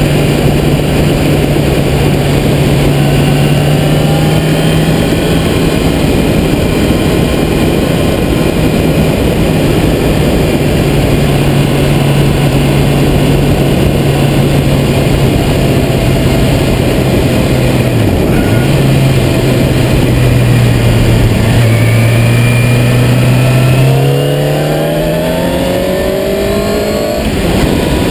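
Sport motorcycle's engine running at a steady cruise under heavy wind rush on the bike-mounted camera's microphone. The engine pitch dips briefly past the middle, then rises over the last few seconds as the bike accelerates.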